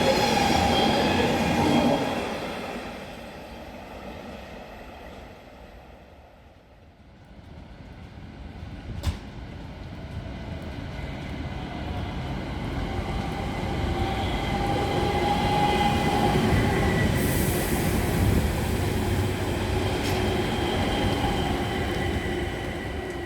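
Train noise fading away over the first few seconds, then a single sharp click about nine seconds in. After that a train builds up again and stays loud, with steady high whining tones over the rumble.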